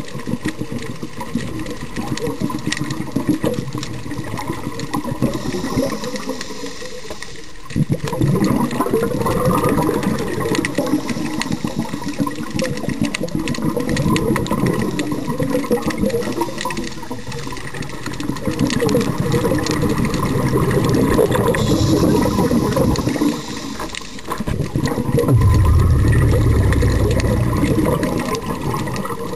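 Underwater sound with a steady crackle of clicks and rattles from nearby lobsters, overlaid three times by the long rushing surge of a scuba diver's exhaled bubbles.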